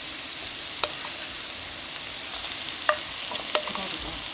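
Oil sizzling in a wok around pan-fried tofu and minced garlic on lowered heat: a steady hiss with a few sharp ticks.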